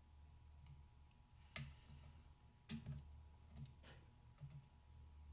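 Faint, sharp clicks of small metal lock parts, pins and core pieces, being handled and set down, four or five taps spread over a few seconds.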